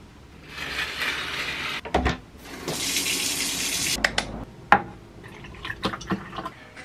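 Water running from a tap in two bursts of a little over a second each, followed by a few light clicks and knocks of things being handled.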